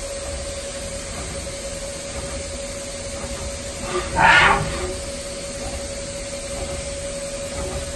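Haas VF-0E vertical machining center running with a steady hum on one even tone. About four seconds in comes a short, loud burst of hiss.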